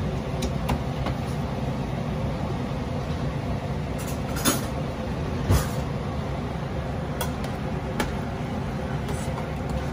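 Pot of pasta water at a steady boil, a constant low bubbling noise, with a few sharp knocks and clicks around the middle, one louder than the rest.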